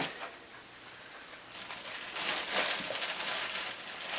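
Cardboard and plastic packaging rustling and scraping as a box is opened by hand, with a run of irregular rustles from about a second and a half in.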